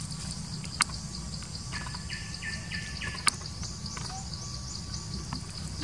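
Outdoor insect and bird sounds: a steady pulsing insect buzz, with a bird calling a short series of about five repeated notes around two seconds in. Two sharp clicks come about one second and about three seconds in, the second being the loudest moment.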